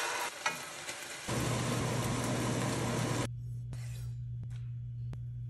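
Chicken sizzling as it goes into a hot stainless-steel pan. About a second in, a low steady hum joins, and near the end a few sharp taps of a knife on a wooden cutting board as cherry tomatoes are sliced.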